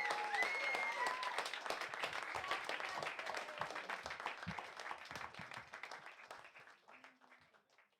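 Audience applause at the end of a live song, with a few whoops in the first second. The clapping thins out and fades away.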